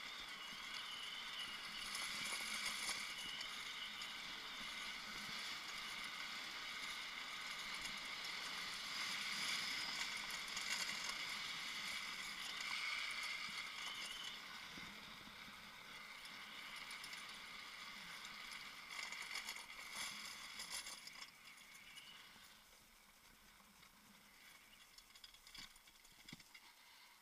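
Drift trike rolling down an asphalt road: a steady hiss from its hard plastic-sleeved rear wheels on the tarmac, dropping away about three-quarters of the way through as it slows.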